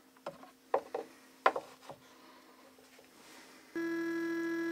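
A few sharp clicks and knocks from hands handling metal parts at a CNC router's collet and setting up a metal probe block. Near the end a loud, steady droning tone with many overtones comes in and holds.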